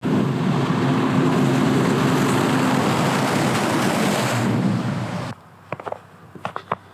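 Loud, steady rush of vehicle and road noise with a low engine hum, cutting off abruptly after about five seconds. It is followed by quiet with a few faint clicks.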